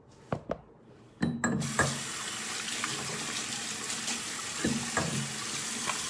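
A bathroom sink tap turned on about one and a half seconds in, water running steadily into the basin. A few knocks and splashes come over it as hands work under the water to wash the face.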